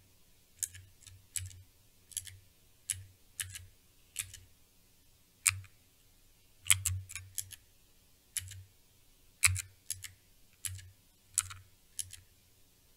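Cherry MX Blue key switches clicking as a 10-key chording keyboard is typed on: about twenty sharp clicks at an uneven, halting pace, some in quick pairs. The typing is slow because the keyboard makes each key press wait about half a second before the next one registers.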